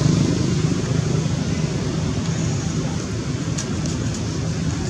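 A motor vehicle engine running steadily, easing off slightly in level.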